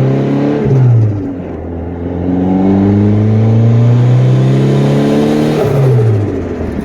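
Turbocharged Honda Accord engine accelerating hard: the revs climb, drop sharply at a gear change about a second in, climb steadily again for about four seconds, then drop at a second shift near the end.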